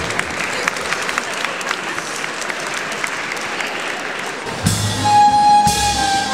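Audience applauding, a dense patter of many hands. About four and a half seconds in, orchestral music with violins starts, with long held notes over a bass line.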